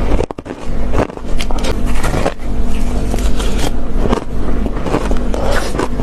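Ice being bitten and crunched close to the microphone: a run of sharp crackling crunches, briefly dropping off just after the start, over a steady low hum.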